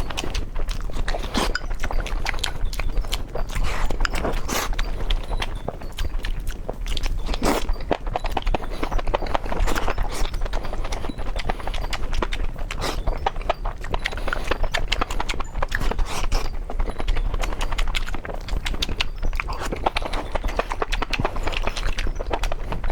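Close-miked eating: chewing and biting food, heard as a dense, continuous run of sharp clicks and crunches.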